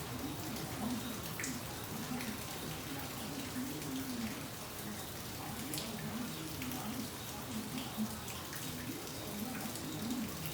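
Steady rain with many individual drops dripping and splattering close by. Under it, a low pitched sound rises and falls over and over.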